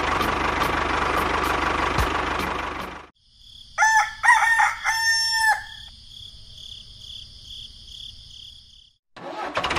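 An engine running steadily, cutting off suddenly about three seconds in. Then a rooster crows in three loud parts over about two seconds, with a high, pulsing chirping behind it for several seconds. The engine comes back near the end.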